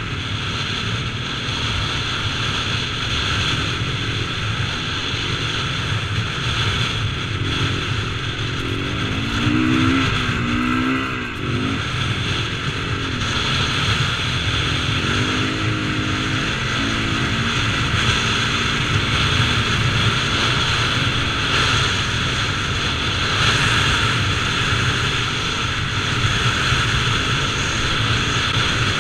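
KTM 450cc single-cylinder four-stroke motocross bike's engine running hard as it is ridden across desert sand, the revs rising and falling with the throttle. The engine note drops briefly about eleven seconds in.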